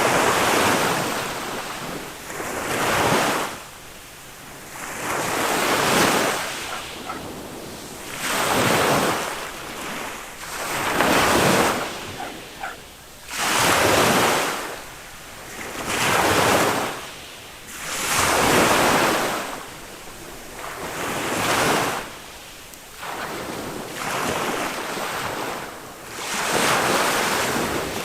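Small waves of a calm Mediterranean sea breaking on a sandy beach, each one a rushing surge that swells and fades, coming about every two and a half seconds.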